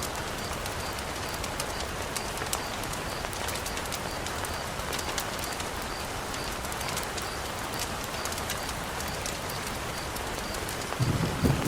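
Steady heavy rain hiss with scattered sharp taps and crackles throughout. Near the end a louder, low pulsing sound comes in.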